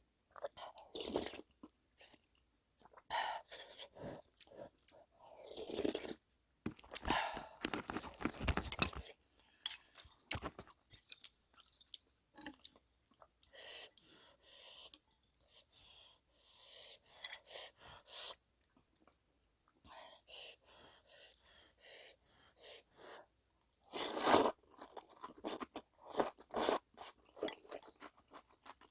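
Close-miked eating sounds: irregular crunching bites and chewing, as of freshly made cabbage kimchi (geotjeori) eaten with seafood knife-cut noodle soup.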